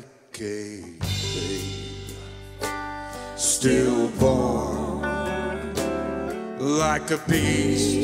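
Live band playing a song: after a brief break at the start, the full band comes back in about a second in, and a lead voice sings over it from about the middle.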